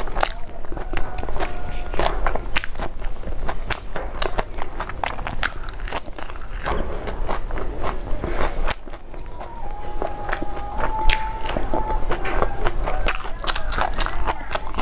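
Close-miked chewing: a person eating rice and curry by hand, with steady crunching, wet mouth clicks and smacks. Her fingers mix rice on a banana leaf between bites.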